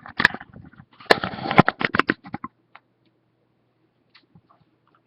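Rapid run of clicks and taps on a computer keyboard, densest between about one and two and a half seconds in, then stopping.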